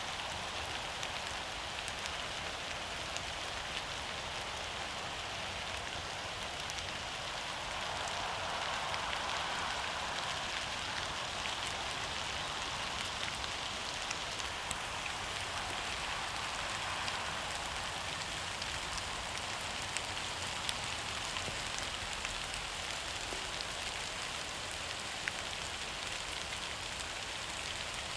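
Steady rain falling on the forest, a dense even hiss with scattered individual drops ticking through it.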